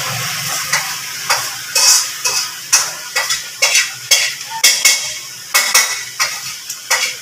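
Metal utensils clattering and scraping with a frying sizzle underneath: irregular sharp clanks, about two a second, some ringing briefly.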